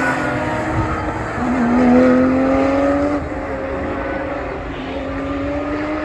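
Porsche 911 GT3 Cup race cars' naturally aspirated flat-six engines at full throttle as several cars pass, each engine note climbing in pitch as they accelerate. Loudest about two seconds in.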